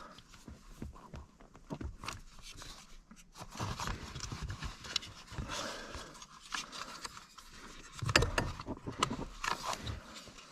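Clicks, knocks and scraping of the throttle pedal being worked across its mount into place, with a louder cluster of knocks about eight seconds in.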